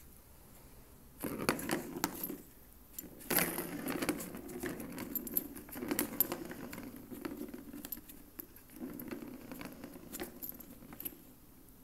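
Cat clawing and digging at a corrugated cardboard scratch pad in a round plastic track toy, with a plastic ball rolling and rattling around the track. The scratching and rattling come in several rough bursts of clicks, starting about a second in.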